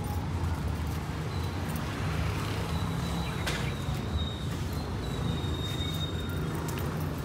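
Steady low rumble of background noise, with a faint thin high tone running through most of it and one sharp click about halfway.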